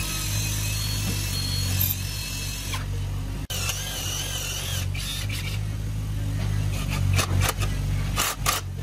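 Handheld electric drill boring into a wooden rail, its motor whine wavering up and down as the bit takes the load. There is an abrupt break about a third of the way in, and a few sharp clicks near the end.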